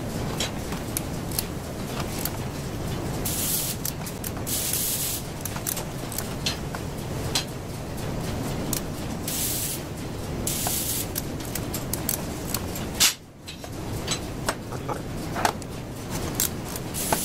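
Rubber air hose being pulled off an automatic air hose reel by hand, rubbing and clicking against the drum, with three short bursts of hiss under a steady noise.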